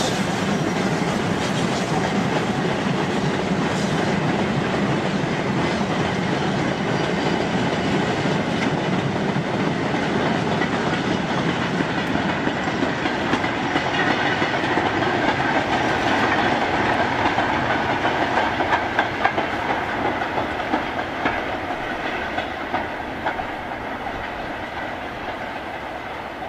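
A steam-hauled goods train's wagons rolling past, their wheels giving a clickety-clack over the track with scattered sharper clicks. The sound fades over the last several seconds as the train draws away.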